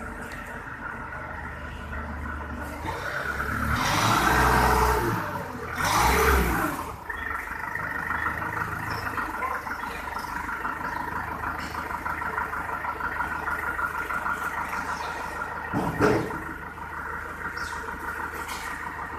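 A heavy vehicle's engine running steadily. It swells louder twice in the first seven seconds, as if revved under load, and there is a single metallic clunk about 16 seconds in.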